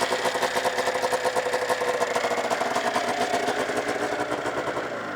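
1999 Arctic Cat ZL 500 EFI snowmobile's fuel-injected two-stroke twin engine idling with an even, rapid firing beat. It begins to wind down at the very end as it is shut off.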